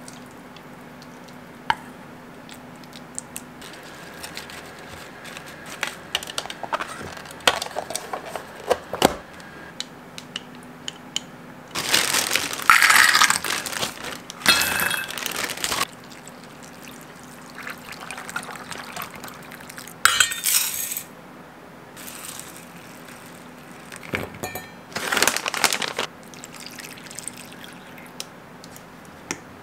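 Kitchen food prep with stainless steel bowls: a bowl and utensil scraping and clinking, then almonds rattling into a stainless steel bowl in loud bursts, first about twelve seconds in and again twice later.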